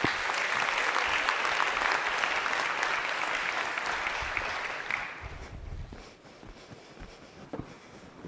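Audience applauding, dying away about five seconds in, then a few faint knocks in the quieter hall.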